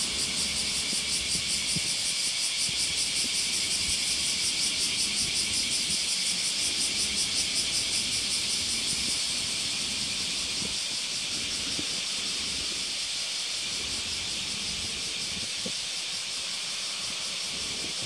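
A high-pitched insect chorus, pulsing rapidly for about nine seconds and then settling into a steady, even hiss.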